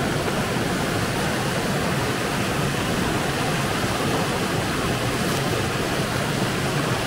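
A small river rushing over rocks, a steady hiss of running water.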